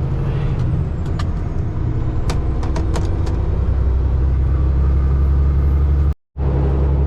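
Steady low drone of a Peterbilt 579 semi truck's Cummins ISX15 diesel and road noise, heard from inside the cab while driving. A few light clicks come between about one and three seconds in, and the sound cuts out completely for a moment near the end.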